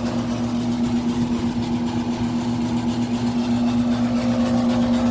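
Vintage York 'Tombstone' air conditioner running: a steady hum from its compressor and condenser fan, with a strong low tone that holds even.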